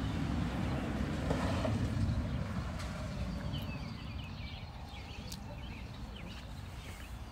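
Outdoor ambience: birds chirping repeatedly in the background from about three seconds in, over a low rumble that fades through the first few seconds.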